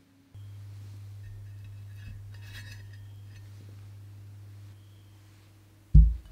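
Steady low hum with a few faint clinks, then a single loud, dull thump near the end as a glass bowl of chocolate ganache is set down on a cloth-covered table.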